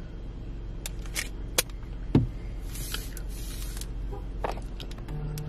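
Handling noises: a few sharp clicks and a dull knock, then a brief rustle about halfway through, over a low steady hum.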